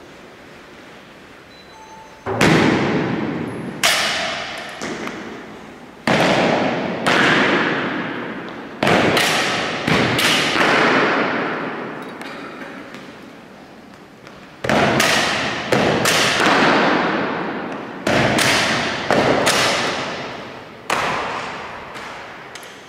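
Sharp drill strikes of soldiers' boots and rifle butts on a marble church floor, starting about two seconds in and coming at irregular intervals, roughly one a second, with a pause in the middle. Each strike echoes for a second or more.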